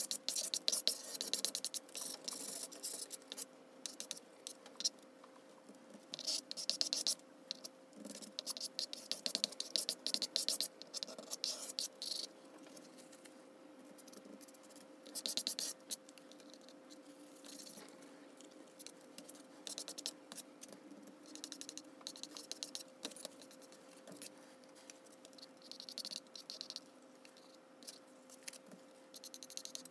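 Sped-up scraping of a plastic card spreading acrylic paint across illustration board: rapid runs of scratchy strokes that pause briefly about halfway through, over a steady faint hum.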